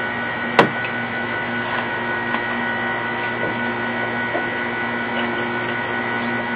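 Steady mechanical hum with several fixed tones, and one sharp click about half a second in.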